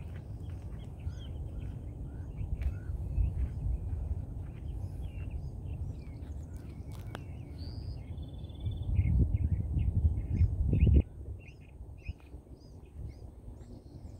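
Wild birds chirping repeatedly in short calls, over a low rumbling noise that swells louder about nine seconds in and cuts off abruptly about two seconds later.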